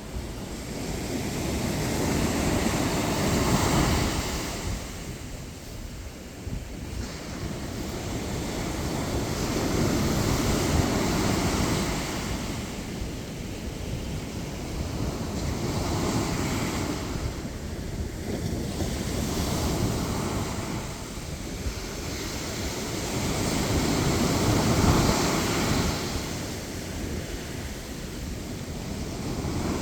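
Sea surf breaking and washing up a beach, a steady rush that swells and fades about every six seconds as each wave comes in.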